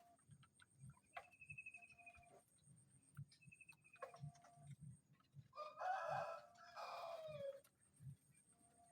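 A rooster crowing once, faint, about two seconds long, starting a little past halfway and falling in pitch at the end.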